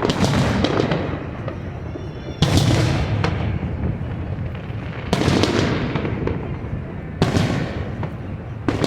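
Aerial fireworks bursting overhead: five loud booms, one every two to two and a half seconds. Each is followed by crackling and a fading, echoing rumble.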